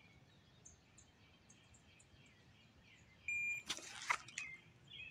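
Near-quiet pause with a few faint bird chirps. About three seconds in comes a shot timer's short electronic start beep, followed by a few soft knocks as the pistol is drawn.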